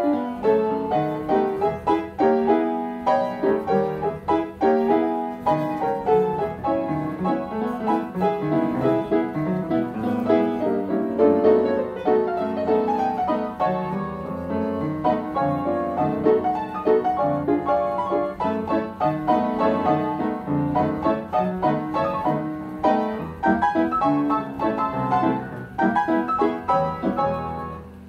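Player piano playing a perforated paper music roll, the roll working the keys to give a busy, fast-moving piano piece. The playing stops right at the end.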